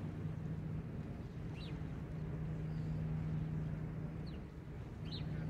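Low, steady drone of a passing container ship's engines, with a bird giving three short, high, down-sweeping chirps.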